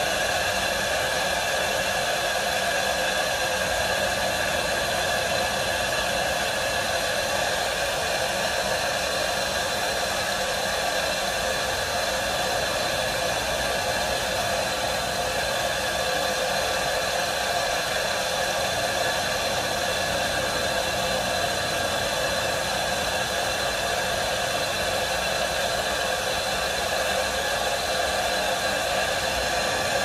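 Steady rushing hiss of water flowing through a fire sprinkler pipe from an opened valve, simulating a broken sprinkler head so the water-flow switch trips after its timer delay.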